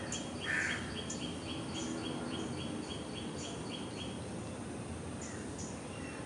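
Birds calling outdoors: a high chirp repeated about three times a second, stopping about four seconds in, with other short high calls over it and one louder call about half a second in.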